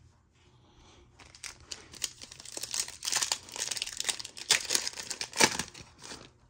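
The plastic wrapper of a football trading card pack being torn open and crinkled by hand. It is a run of crackly rustles that starts about a second in, grows louder in the middle and later part, and stops just before the end.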